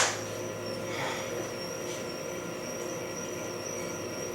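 Greenstar twin-gear juicer running steadily, a low even mechanical hum with a faint high whine.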